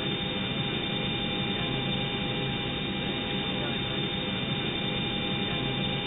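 Background noise of an old magnetic-tape cockpit voice recorder: a steady hiss and rumble with a few thin constant tones, sounding muffled with no highs.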